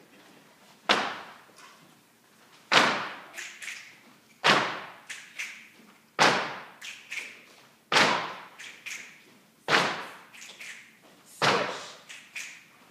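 Rhythmic body percussion from a line of performers on a wooden stage: seven sharp hits at an even pace about every second and three-quarters, each followed by a couple of lighter taps. Each hit rings on in a reverberant hall.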